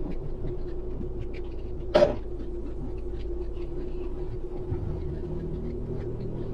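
Steady low rumble of a car cabin on the move, with a constant hum over it, and one short, sharp sound about two seconds in.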